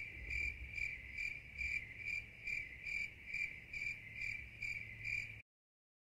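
Cricket chirping steadily, about two to three chirps a second, cutting off abruptly about five seconds in.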